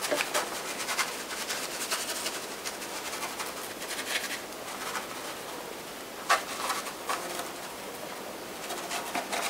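Paintbrush scrubbing and dabbing thick acrylic paint onto canvas in short scratchy strokes, with a sharper stroke about six seconds in, over a steady hiss of rain.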